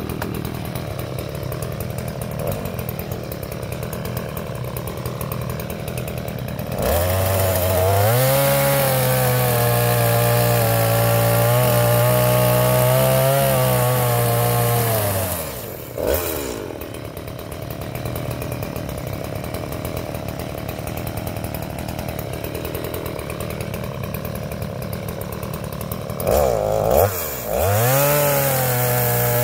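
STIHL two-stroke chainsaw idling, then revved to full throttle for about eight seconds and let fall back to idle. It gives a short blip of throttle and revs up again near the end as the bar comes against the oil palm stump.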